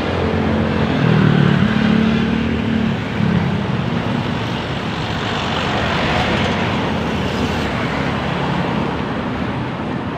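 Bus engine and road noise as a bus drives past. The low engine drone is loudest in the first three seconds, then gives way to steady traffic noise.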